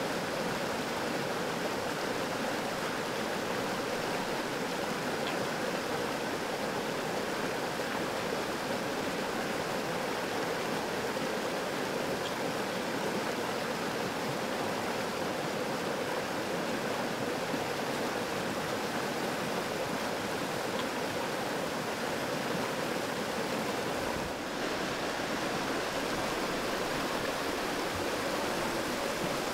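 Fast creek water rushing steadily over rocks and rapids.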